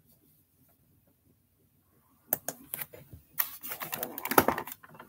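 Near silence, then from about two seconds in a run of clicks, knocks and rustling as a hand handles something close to the microphone, densest near the end.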